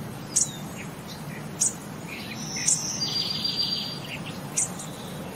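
Birds chirping: a short, sharp, high chirp repeating about once a second, with a rapid trill near the middle, over a low steady hum.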